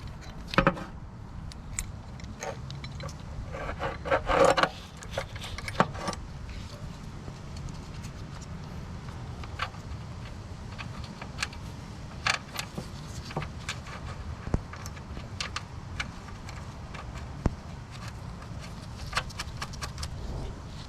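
Metal parts and hand tools clinking and scraping while working on a mower's belt tensioner, with scattered single clicks and a busier run of knocks about four to six seconds in.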